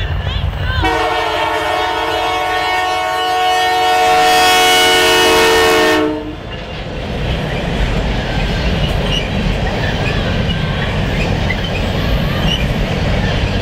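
A diesel locomotive's air horn blowing one long blast as the Canadian Pacific GP20C-ECO passes, dropping in pitch and getting louder about a second in, then cutting off about six seconds in. After it, the train's cars roll by with a steady rumble of wheels on the rails.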